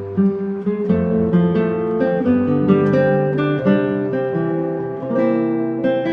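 Background music: acoustic guitar playing a run of plucked notes and strummed chords.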